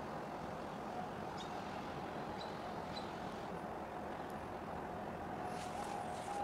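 Steady, even rumble of distant engines, with a faint high hum that comes and goes.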